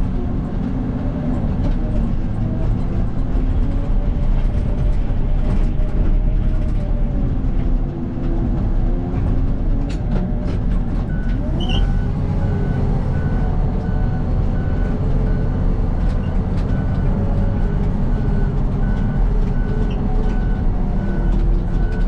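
Case 800C motor grader's diesel engine running steadily, its pitch rising once about halfway through. From then on a reversing alarm beeps at an even pace.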